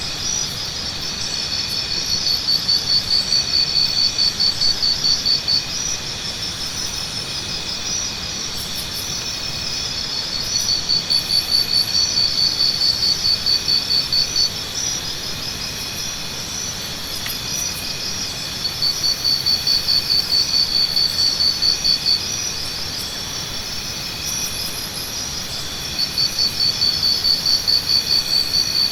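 Tropical forest insect chorus at dawn: several high-pitched, steady trills overlap. One louder pulsing trill swells in four bouts of about three and a half seconds each, roughly every eight seconds.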